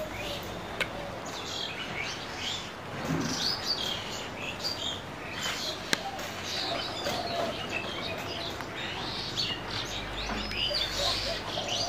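Small birds chirping and twittering in many short calls, with two sharp clicks, one about a second in and one about halfway through.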